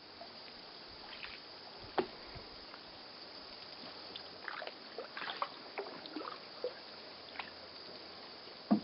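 Canoe paddles dipping into calm, still water, with soft drips and small splashes from the strokes. A sharp knock comes about two seconds in and a louder one right at the end.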